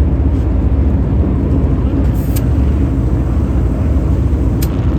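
NASCAR Cup Series stock cars' V8 engines running on track, a loud steady drone, with two brief clicks about two seconds in and near the end.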